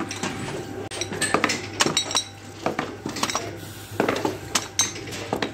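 Small glass perfume bottles clinking against one another as they are handled and set down, an irregular run of sharp clinks.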